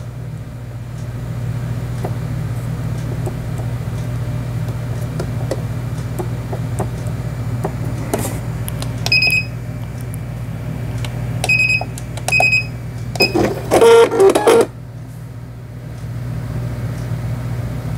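Janome Memory Craft 5000 computerized sewing machine running with a steady hum, with several short electronic beeps in the middle as its panel buttons are pressed, and a brief louder burst about fourteen seconds in.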